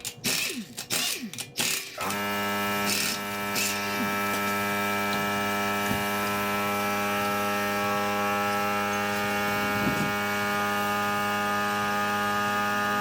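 A few clicks and knocks, then about two seconds in a power tool starts and runs at one steady pitch for about eleven seconds before cutting off: it is removing the wheel's lug bolts.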